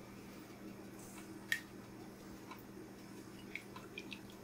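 Faint clinks and ticks of a ladle against the stainless-steel pot and the bowl as curry is spooned over rice. One clearer clink comes about a second and a half in, then a few small ticks near the end, over a faint steady low hum.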